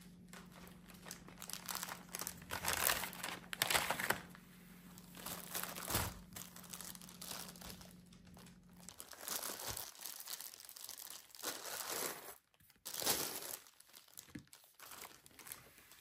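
Plastic bagel bags crinkling and rustling in irregular bursts as bagels are handled and taken out, over a faint low hum that stops about halfway through.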